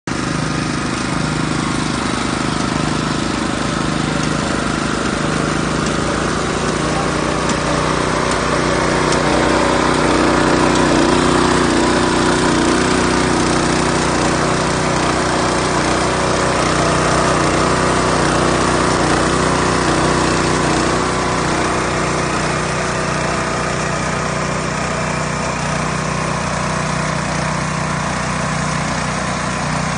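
Small petrol engine of a hand-pushed road-marking machine running steadily.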